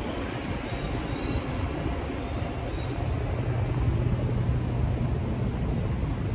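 Steady city traffic noise, with a vehicle's low engine hum growing stronger about halfway through.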